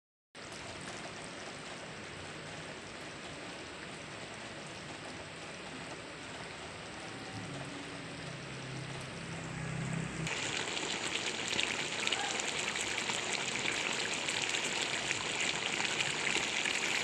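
Pork mechado stew simmering in the pan, a steady crackling, bubbling hiss that grows louder and brighter about ten seconds in.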